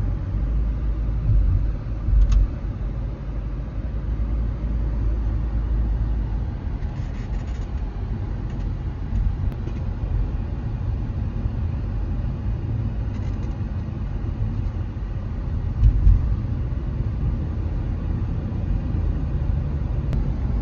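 Steady road and tyre rumble inside the cabin of a 2018 Toyota Prius driving on a city street. There are two louder bumps, about two seconds in and again about sixteen seconds in.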